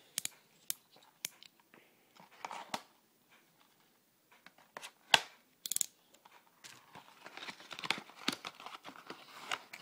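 Packaging being opened by hand, tearing and crinkling. Scattered clicks and crackles give way to a denser stretch of crinkling near the end, with one sharp click about five seconds in.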